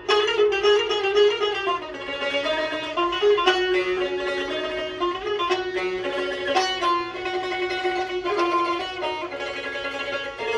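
Azerbaijani tar, freshly fitted with a new skin and strings, played solo in a fast melodic passage of rapidly repeated plucked notes.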